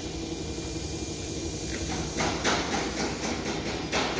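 A steady low mechanical hum, with a run of short, sharp hisses starting about halfway through, a few each second.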